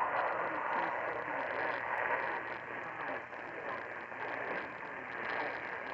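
AM radio reception of a distant station: a steady bed of static and hiss with faint, garbled talk under it.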